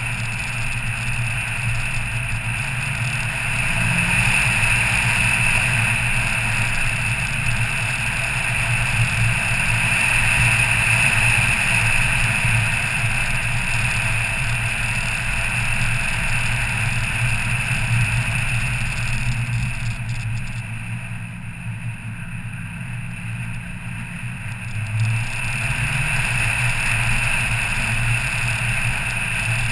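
A car's engine running, with tyre and road noise, while driving along a winding mountain road, heard from inside the cabin. It eases off and grows quieter for a few seconds past the middle, then picks up again.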